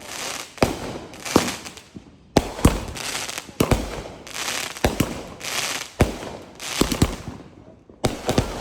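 A rapid series of firework bangs, roughly one a second and sometimes two in quick succession, each followed by a hissing crackle.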